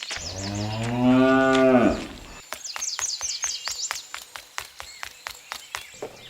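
A long, low animal call lasting about two seconds, followed by steady clicking at about four clicks a second with high chirps above it.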